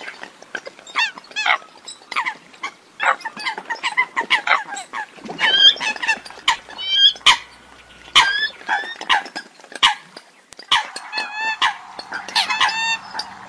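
Eurasian coots calling: many short, sharp, honking calls and clicks in quick succession, several birds overlapping near the end.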